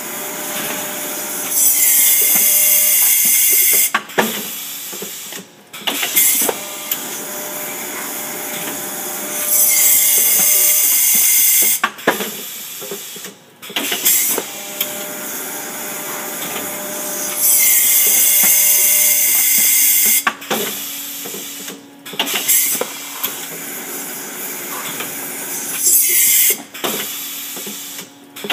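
Heat-transfer pail labelling machine cycling, with loud hissing bursts about every eight seconds, each lasting one to two seconds. Between the hisses come sharp clunks and clicks from the pneumatic clamps and actuators, over a steady mechanical whir.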